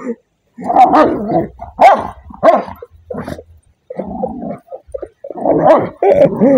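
Two dogs play-fighting, growling and barking in short, rough bursts with brief pauses between them.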